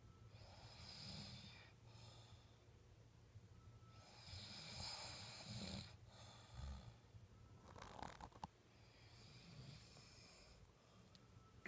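A sleeping person snoring softly, with three or four slow, rasping breaths a few seconds apart.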